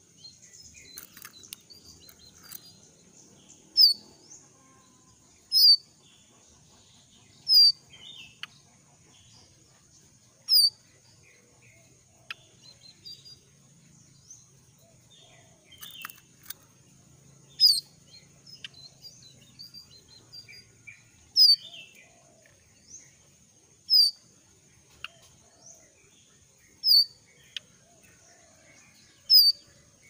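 A young wild-caught jongkangan in moult calling: a short, sharp high note repeated every two to three seconds, with softer chips and twitters in between.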